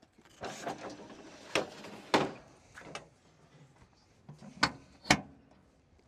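The slide-out combined air-conditioning and hydraulic cooler core of a MacDon M205 windrower being pushed back in: a scraping slide ending in two loud metal knocks as it seats. A few seconds later the latch at its edge is worked, giving two more sharp knocks.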